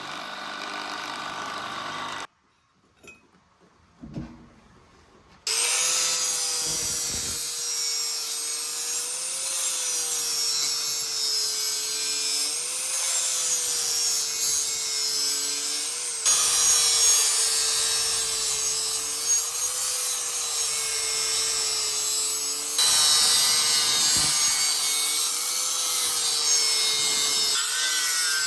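An electric power tool running with a steady motor hum that wavers slightly as the work presses on it, under a loud high rasping noise of material being abraded or cut. It starts about five seconds in, after a short near-quiet gap with a few small clicks.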